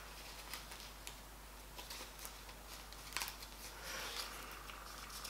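Faint handling sounds of small objects being worked by hand: scattered light clicks and rustling, with one sharper click a little past halfway.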